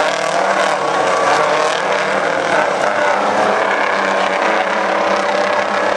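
Big-rig semi trucks' diesel engines running steadily together, several engine notes overlapping in a continuous drone with no sharp changes in pitch.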